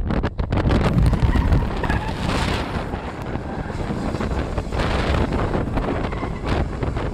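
Wind buffeting the microphone in irregular gusts, over the rumble of a moving car.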